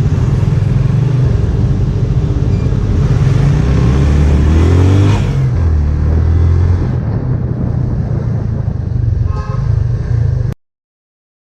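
Honda CB1000R's inline-four engine running on the road, the revs climbing about four seconds in and then dropping back. The sound cuts off suddenly near the end.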